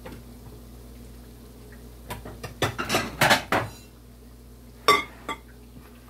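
Dishes and cutlery being handled: a cluster of clattering clinks and knocks about two to three and a half seconds in, then one sharp clink near five seconds.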